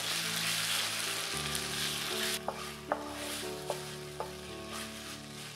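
Thick tomato-ketchup sauce with chicken and vegetables sizzling in a nonstick frying pan as it is stirred with a wooden spoon. About two seconds in the sizzle drops sharply, and a few light clicks of the spoon against the pan follow, over soft background music.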